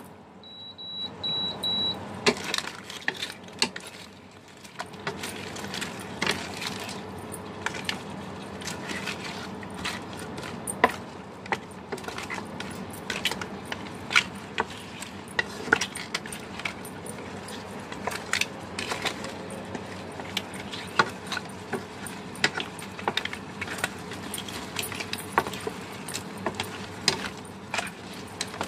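Wooden spatula stirring whole crab pieces in a wok, the shells clacking and scraping against each other and the pan in irregular knocks over a steady hiss. Four short high beeps sound near the start.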